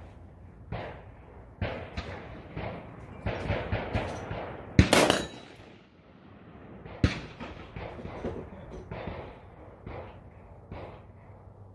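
Rifle shots: a string of sharp cracks of varying loudness at irregular intervals, the loudest about five seconds in and another strong one about seven seconds in.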